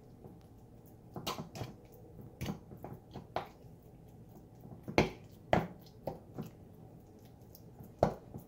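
A metal fork clicking and tapping against a small black ceramic bowl as it fluffs minced raw beef, with soft squishes of the meat. The clicks come irregularly, the sharpest about halfway through and near the end.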